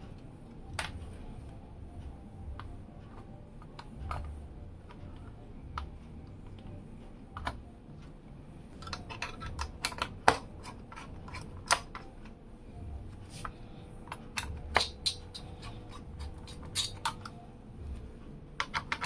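Sharp clicks and light taps of small hard parts being handled, a few scattered at first and coming thick and fast from about halfway through, over a low rumble of handling.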